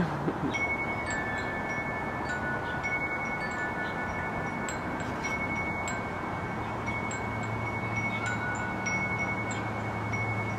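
Wind chimes ringing: several long, clear notes at different pitches, sounding one after another and overlapping. A low steady hum comes in about halfway through.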